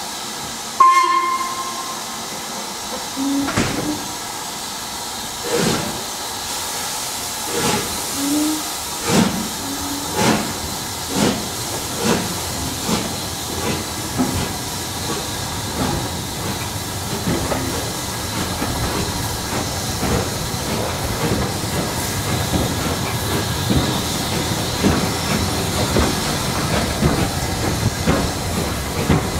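Steam locomotive pulling away from a station: a short whistle blast about a second in, then exhaust chuffs that start slow, a couple of seconds apart, and quicken steadily over a hiss of steam until they merge into a steady running rush.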